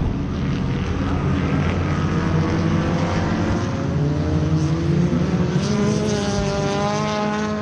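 Enduro race car engines running on the track over a steady low drone, with one engine's pitch climbing slowly as it speeds up.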